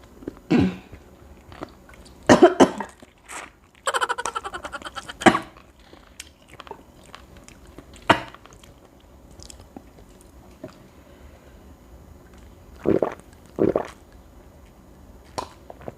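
A person eating close to the microphone: chewing and biting, with a few sudden louder sounds scattered through, among them one buzzy sound lasting about a second and a half, a few seconds in.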